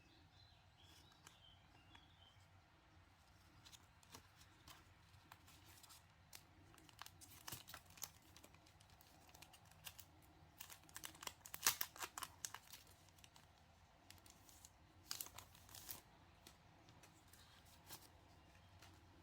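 Packaging rustling, crinkling and tearing in short spells, loudest about twelve seconds in, with another flurry around fifteen seconds. Faint bird chirps sound in the first couple of seconds.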